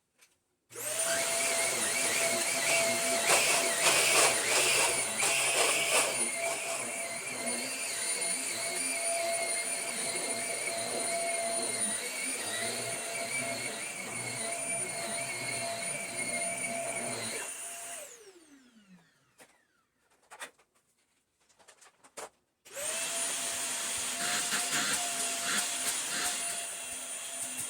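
Vacuum cleaner switched on and running steadily with a high whine. About 18 seconds in it is switched off and its motor spins down with a falling pitch. After a few light clicks it is switched on again near the end.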